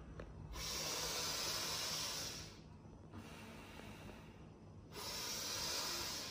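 A man's deep, forceful breathing through the nose in bhastrika pranayama: a long rushing breath of about two seconds, a quieter stretch, then another long rushing breath near the end.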